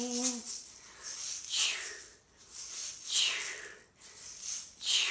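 A shaky egg shaken in slow, evenly spaced swishes, about one every second and a half, each with a breathy falling hiss that keeps the rhythm of a train.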